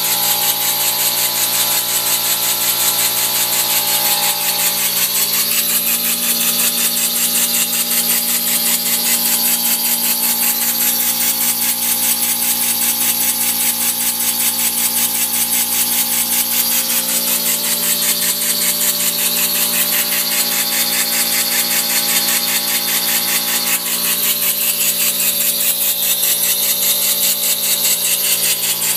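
Homemade model single-acting stationary steam engine running steadily on compressed air at about 130 PSI, with rapid, even exhaust puffs over a steady whine.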